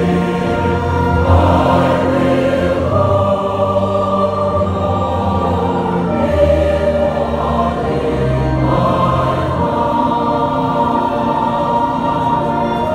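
Mixed SATB choir singing a hymn in long, held phrases, accompanied by a chamber orchestra.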